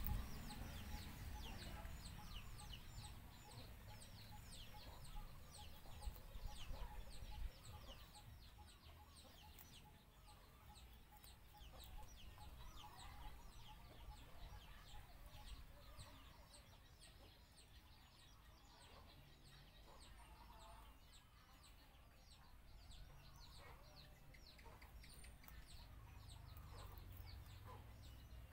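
Faint bird calls: rapid high chirps, thick for the first ten seconds or so and then thinning out, over a low rumble.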